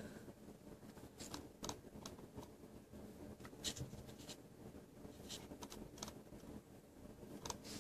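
Faint, irregular clicks of a computer mouse being clicked and scrolled, about ten in all, over a low steady room hum.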